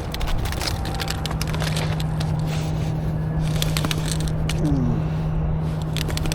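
A steady low hum over a rumbling background, with scattered small clicks and crackles. A short falling tone comes about five seconds in.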